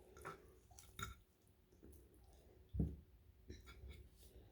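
Faint, close-miked wet chewing and lip-smacking of a mouthful of curry chicken and pasta, a few scattered smacks and clicks, with a louder low thud near the three-second mark.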